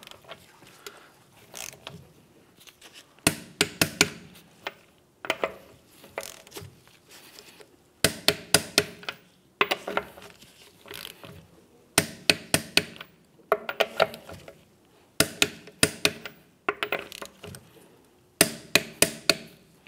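Torque wrench ratcheting and clicking on wheel lug nuts being tightened to 70 ft-lb: about nine quick groups of sharp clicks, one every couple of seconds, the wrench's click marking each nut reaching the set torque.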